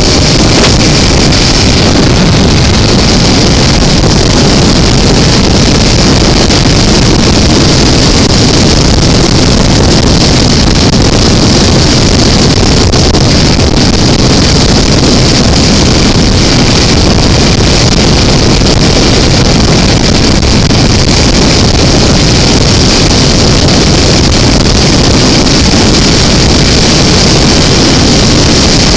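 Steady, loud wind rush on the microphone over a 2005 BMW F650CS motorcycle's single-cylinder engine running at a constant highway cruising speed.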